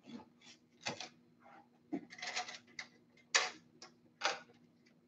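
Several light, irregular clicks and taps from hands handling plastic-bodied RC trucks, over a faint steady hum.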